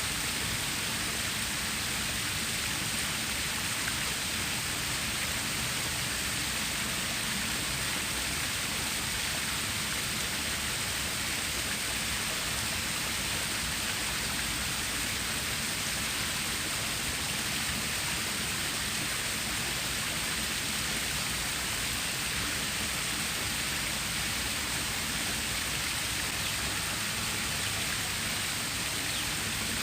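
Water stream flowing: a steady, even rush of water.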